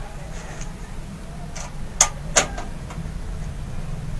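A computer power supply unit being fitted into a metal PC case: three short, sharp clicks and knocks of metal parts about half a second apart, a little past the middle, over a steady low hum.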